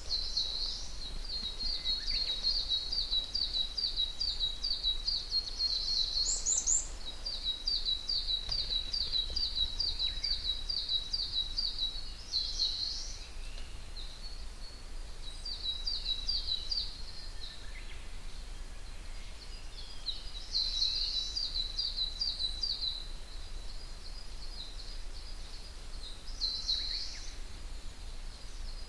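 Wild songbirds singing: one bird gives long runs of quick, repeated high notes lasting several seconds each, breaking into shorter bursts later on. A higher, brief call cuts in about six seconds in.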